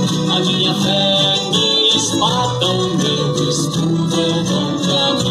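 Guitar-backed Portuguese devotional song playing, here in a passage with no sung words between verses.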